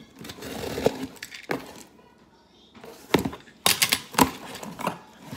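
Box cutter slitting the packing tape on a cardboard box: a scraping rush lasting about a second. It is followed by a series of sharp cracks and knocks as the cardboard is handled and pulled open.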